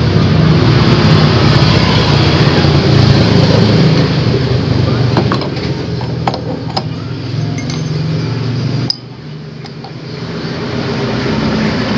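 Light metallic clinks of a steel flywheel puller being fitted and its bolts threaded onto a motorcycle's magneto rotor, a few of them around the middle. Under them runs a loud, steady low mechanical rumble that cuts off suddenly near the end and then builds back up.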